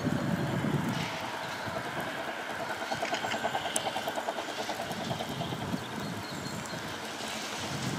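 Distant narrow-gauge steam train climbing towards the station, heard under wind buffeting an unshielded camera microphone; from about three seconds in, for a couple of seconds, a quick even beat of about five a second comes through.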